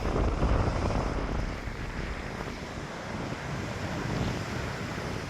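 Strong gusty wind buffeting a phone's microphone: a low rumbling rush, loudest in the first two seconds and then easing a little.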